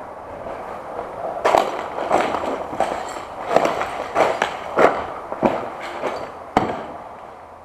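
Footsteps crunching and cracking over rubble and broken boards, about a dozen irregular sharp crunches over a steady background hiss.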